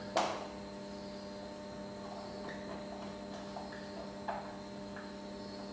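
Steady electrical mains hum, with a few faint short scratches of a marker writing on a whiteboard and one brief sharp sound right at the start.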